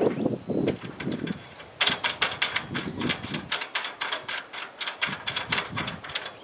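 Rapid metallic clicking and knocking of tools and stainless steel nuts and bolts being fitted to solar panel mounting rails. A few duller knocks come first, then a quick run of clicks from about two seconds in.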